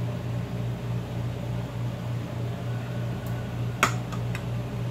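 Steady low machine hum, with a sharp click about four seconds in and two lighter clicks just after it: a metal spoon knocking against a bowl while mayonnaise is scraped into it.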